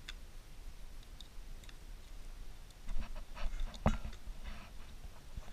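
Cooked blue swimmer crab being cleaned by hand: soft crackles and clicks as the gills are pulled away and bits of shell snap, with a sharper crack just before four seconds in.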